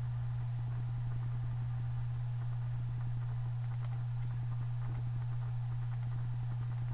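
Steady low hum, with a few faint computer-mouse clicks as effect thumbnails are selected.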